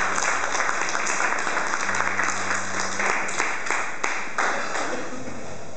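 A crowd applauding, many hands clapping together, thinning out near the end.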